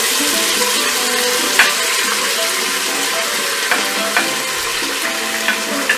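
Chopped onion frying in hot oil with whole spices, a steady sizzle, while a wooden spatula stirs it and knocks against the pot a few times.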